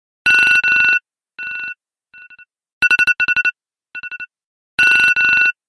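Electronic alarm-clock ringtone going off: a looping pattern of beeps at two pitches, loud beeps followed by fainter echoing repeats, starting over about every two and a half seconds.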